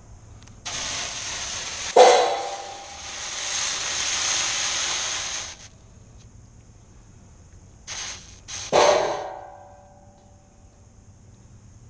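Water poured from a bottle onto a hot, freshly silver-brazed bronze cymbal sizzles into steam for about five seconds, quenching it so the flux pops off. A sharp metallic ping about two seconds in, and another about nine seconds in after a brief second sizzle, each set the cymbal ringing.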